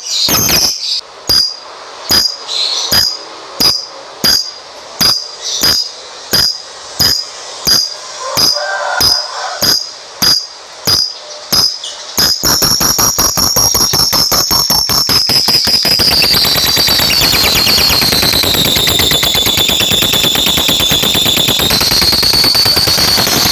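Lovebird calling: sharp, high chirps about twice a second, then from about halfway in a long unbroken rapid chatter, the 'ngekek', whose pitch slowly sinks and lifts again near the end.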